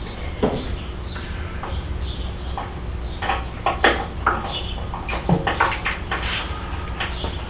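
Irregular metal clinks and knocks of hand tools and bolts being handled while crash bars are fitted to a motorcycle, over a steady low hum.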